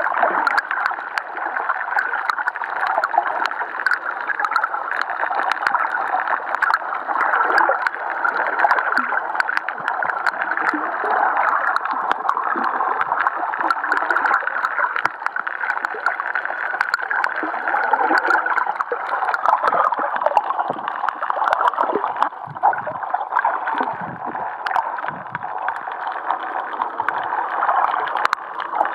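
Steady, muffled underwater water noise picked up through a camera's waterproof housing, with scattered sharp clicks.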